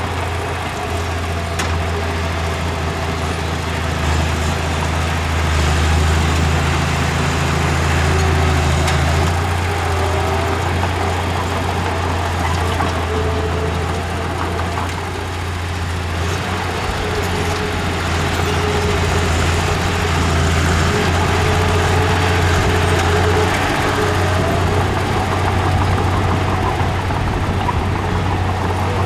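Heavy construction machinery diesel engine running steadily, with a low drone and a faint wavering whine.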